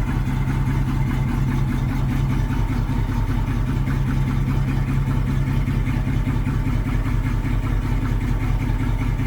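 Dodge Ramcharger's 318 V8 idling steadily.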